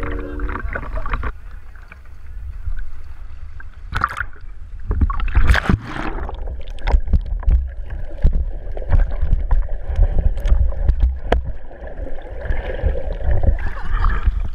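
Waterproof action camera dunked in and out of sea water: water sloshing and gurgling around the housing with a low rumble, and many short sharp splashes from about four seconds in.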